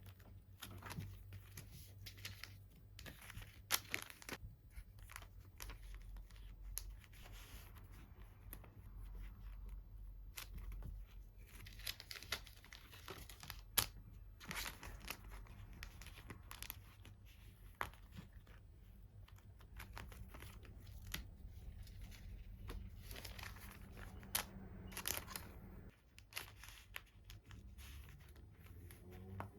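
Plastic sleeves and packaging being handled, with irregular crinkling, rustling and brief tearing sounds and scattered sharp little clicks.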